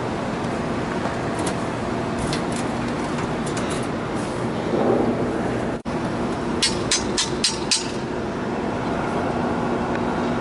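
Steady mechanical rumble with a faint hum, broken by a few short sharp clicks, including a quick run of five about two-thirds of the way through.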